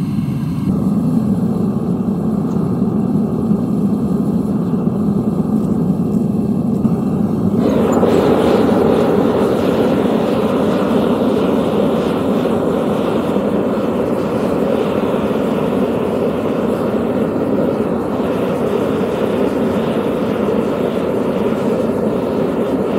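Gas-fired melting furnace's burner running with a steady loud rush. The fuel tank is running low. About eight seconds in the sound suddenly fills out and gets a little louder and brighter, and it holds there.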